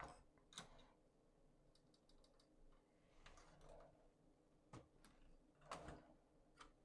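Near silence broken by faint, scattered clicks and taps, with a quick run of small ticks about two seconds in.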